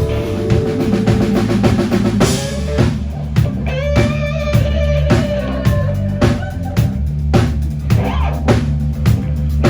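Live blues-rock band playing loud, with no vocals. A drum kit keeps a steady beat on kick and snare under a bass line, while an electric guitar holds long notes that bend and waver in pitch.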